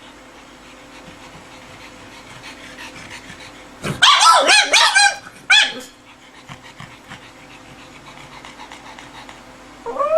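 A pug giving a burst of high, wavering cries that bend up and down in pitch about four seconds in, one more a moment later, and a short rising cry near the end.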